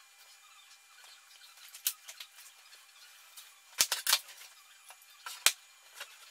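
Steel rulers and a steel square clacking against a hard tabletop as they are moved and laid down: a light click about two seconds in, a cluster of sharp clacks near four seconds, and one more loud clack about five and a half seconds in.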